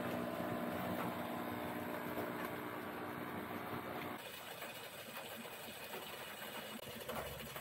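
Aquarium pump humming steadily with a low, even drone that cuts off about four seconds in. After that only a faint hiss with light scattered ticks remains.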